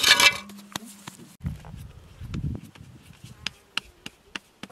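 A short, loud scrape of dough off the side of a metal mixing bowl. Then, from about three seconds in, light, sharp pats, roughly three a second, as a ball of dough is shaped between plastic-gloved hands.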